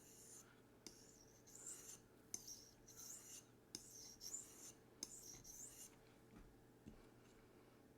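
Faint scraping strokes of a D2 steel knife blade drawn across a white sharpening stone held at a fixed angle by angle guides, a series of short passes that stop about six seconds in.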